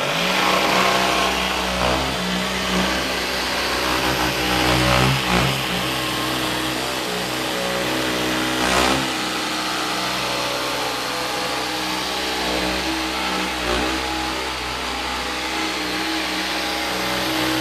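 Festool PSC 420 Carvex 18V brushless cordless jigsaw cutting a curve through plywood, the blade running steadily under load with small rises in level as the cut turns.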